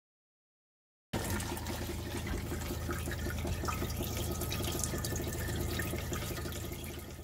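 Water running from a faucet into a stainless steel sink, a steady splashing that starts abruptly about a second in, with a steady low hum beneath it.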